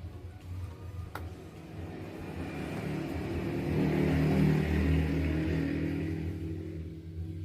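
A motor vehicle passing by: a low engine rumble that swells to its loudest about four seconds in, then fades away.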